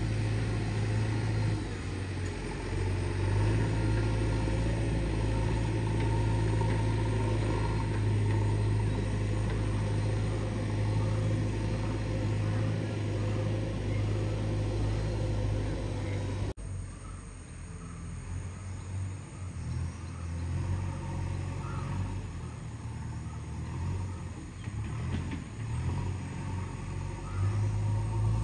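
JCB 3DX backhoe loader's diesel engine running, a steady low drone that swells and eases as the machine works. A little past halfway the sound drops abruptly and carries on quieter, growing louder again near the end.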